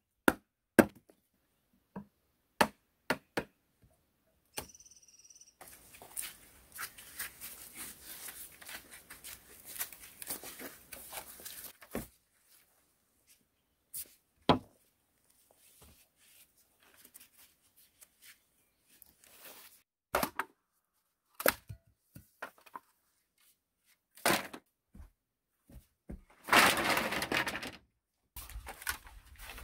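A heavy blade chopping into a wooden stake in a few sharp knocks, followed by rustling, scraping and hollow knocks of green bamboo poles being handled and laid side by side.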